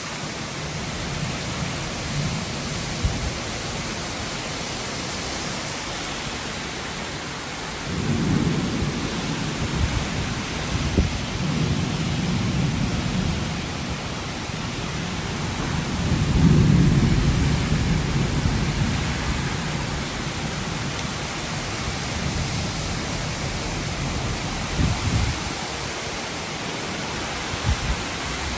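Steady rain with rolling thunder: a low rumble starts about eight seconds in, swells again in the middle, and a few short low thuds come near the end.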